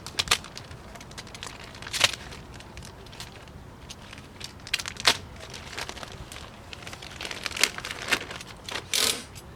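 Plastic and paper packaging of a power steering seal and gasket kit being handled, crinkling, with a few sharp crackles and a longer rustle near the end.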